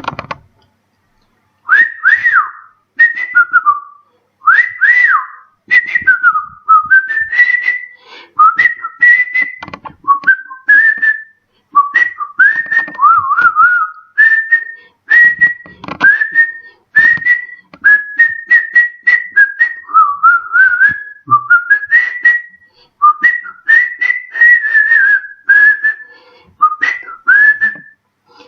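A man whistling through his lips: a run of short, quick phrases whose pitch slides up and down, many notes swooping up to the same high top note.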